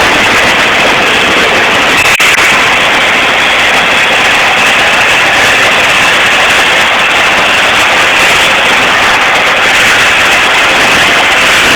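Electric arc welding: a steady, loud crackling sizzle of the arc on steel, broken only by a very short gap about two seconds in.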